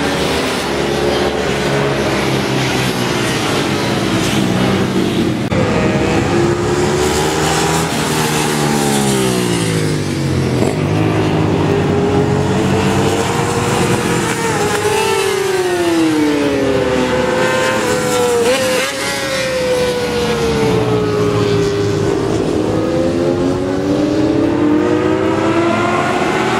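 Several race motorcycles running flat out along a circuit's main straight, engines revving high and climbing in pitch, then dropping in pitch as each bike passes. The engine notes overlap one after another with no break.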